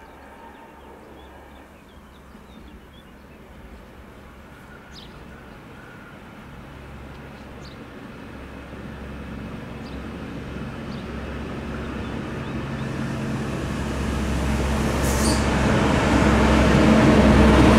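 DB Class 612 diesel multiple unit approaching, its diesel engines droning steadily and the sound growing steadily louder as it nears and runs into the platform. A few faint short clicks are heard along the way.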